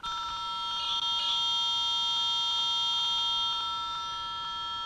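Sena 20S Bluetooth headset speaker giving a screaming loud, steady high-pitched tone made of several pitches at once, starting suddenly the moment the call button is pressed. It is a fault: the headset does this whenever the call button is pressed while it is connected to the phone, which leaves it unusable.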